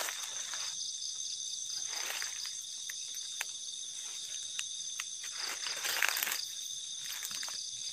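Night chorus of crickets and other insects, a steady high-pitched trill, with a few rustling footsteps through undergrowth; the loudest rustle comes about six seconds in.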